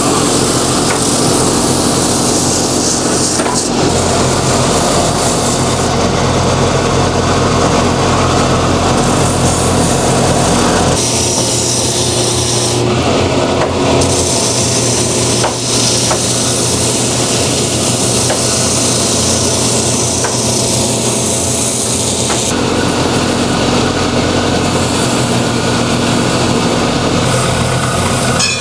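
Finishing sander's spinning abrasive drums grinding a boot's stacked-leather heel and rubber sole as the heel's contour is hand-shaped, over the steady hum of the machine's motor. The grinding changes tone about eleven seconds in and again a little past twenty-two seconds.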